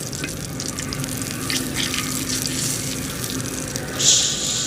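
Grease sizzling and crackling on a hot skottle griddle as food fries, with a sharper, louder hiss about four seconds in.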